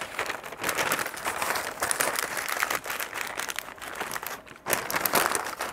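Butcher paper crinkling and rustling as it is folded up and pressed around a smoked beef shank, in irregular crackly bursts with a brief lull about four and a half seconds in.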